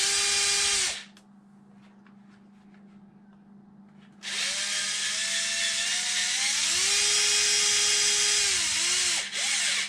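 Twin brushless electric motors and drivetrain of an RC off-road truck revving under radio throttle: a hissing whine that rises in pitch and cuts off about a second in, then starts again a few seconds later, climbs, holds for a few seconds and winds down near the end.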